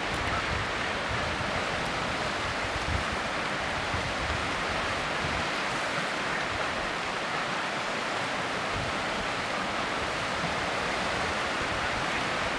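Steady rush of the sea washing and breaking on the rocks below the cliffs, with a low, uneven wind rumble on the microphone.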